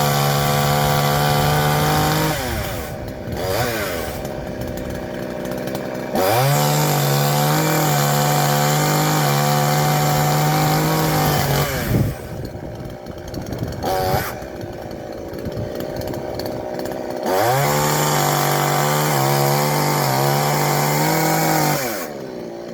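Chainsaw cutting the undercut in a tree limb. The engine runs at full throttle in three spells, drops to idle between them, and revs briefly once during the second pause.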